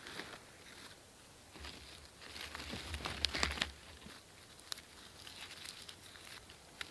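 Dry birch bark and shredded bark tinder being torn apart and crumpled by hand: a soft, irregular rustling crackle, busiest in the middle, with a few sharp crackles later on.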